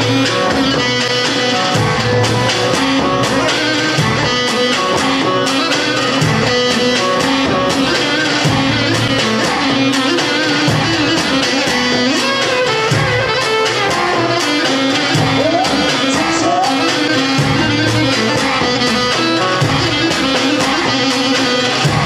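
Dance music for a circle dance, a plucked-string melody over a steady beat.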